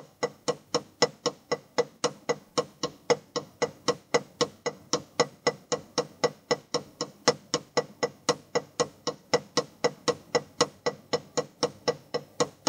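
Drumsticks playing a paradiddle sticking (right-left-right-right, left-right-left-left) as an even stream of dry, sharp strokes, about five a second. It is played without accents so that the change of sticking is what makes the sound differ.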